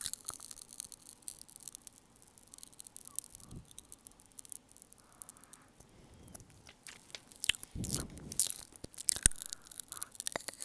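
Popping candy crackling with many rapid, irregular small pops and clicks, closer and louder about eight seconds in.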